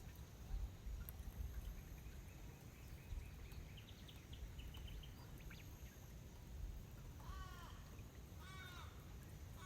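Faint outdoor ambience with a steady low rumble. Birds call over it: a quick run of short, high chirps a few seconds in, then, from about seven seconds in, a series of repeated wavering calls about a second apart.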